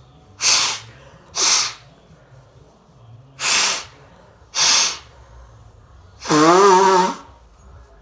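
A person with a congested, snot-clogged nose blowing hard into tissues: four short, forceful blows, then a longer one about six seconds in with a wavering voiced hum through it.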